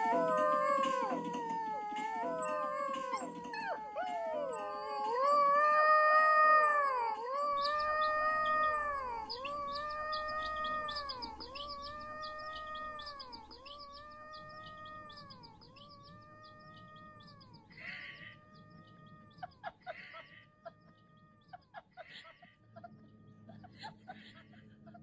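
An animal's drawn-out pitched calls: at first several overlapping falling cries, then a long, even run of arched calls about one every second and a bit, growing fainter toward the end. A few short clicks sound over the last stretch.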